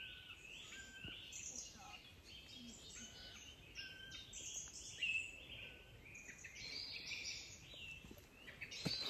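Several songbirds singing at once in woodland, faint: overlapping phrases of high chirps and whistles, with one short steady whistled note repeated every second or so.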